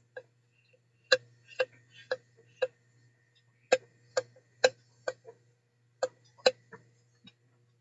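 Sharp mechanical clicks, about two a second, in runs of three or four with short pauses between runs, over a faint steady low hum.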